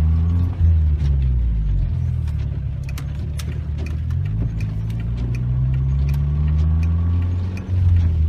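Car engine and road noise heard from inside the cabin while driving. The engine note rises and falls with speed, climbing through the second half, with scattered light ticks.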